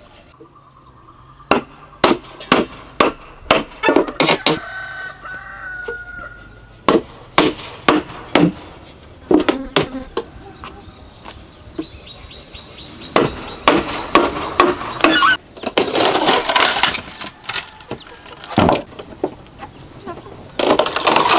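A machete driven into the end of a green bamboo pole, a run of sharp knocks on the blade and wood. In the second half the pole splits along its length in several long crackling, splintering bursts.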